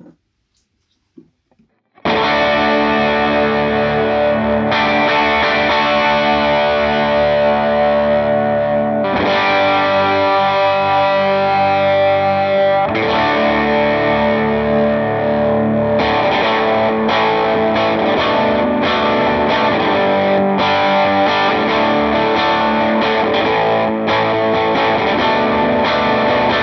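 Gretsch electric guitar with Filter'Tron pickups played through a Line 6 HX Stomp preset. Sustained, effects-laden chords come in about two seconds in and change every few seconds.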